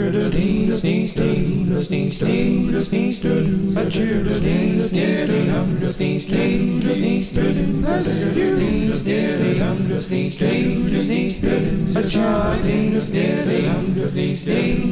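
A cappella vocal music: several voices singing together over a steady, regular percussive beat.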